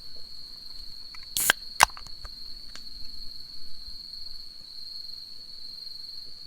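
Night insects chirring in one steady high trill, with a brief rustle and a single sharp click about a second and a half in.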